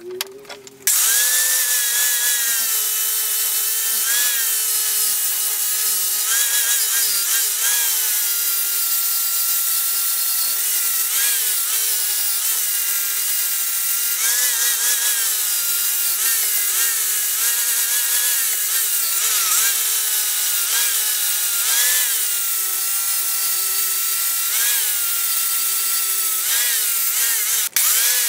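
Angle grinder grinding away the bulk of a steel railroad spike to form a bottle opener's lip. The motor's whine starts about a second in over the hiss of grinding, and its pitch dips and recovers every second or two. The sound breaks off briefly near the end.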